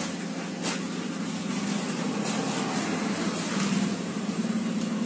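Steady street background noise: a low rumble under a constant hiss, with a few faint clicks.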